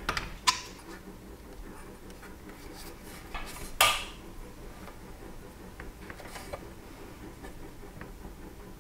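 A few scattered metallic clicks and clinks of a wrench and brass fittings being worked on a small air compressor's head, the loudest about four seconds in.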